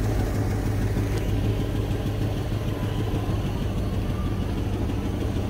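2008 GMC chipper truck's engine idling with a steady low hum while the raised chipper box is lowered on its dump hoist.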